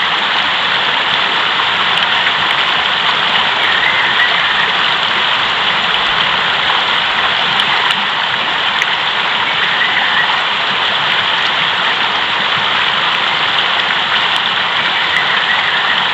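Fast-flowing mountain river: a steady, even rushing of water.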